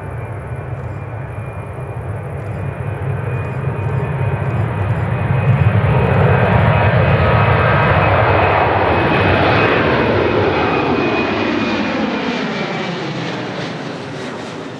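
Boeing 737's twin turbofan engines at takeoff power as the airliner rolls and climbs past overhead, with a steady high whine over the jet noise. The noise builds to its loudest midway, then fades away, with a falling sweep of tones after it passes.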